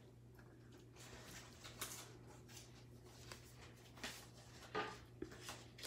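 Near silence with faint handling noises: a few short soft rustles and taps of paper cards and stickers being sorted by hand, the clearest a little before the end, over a low steady hum.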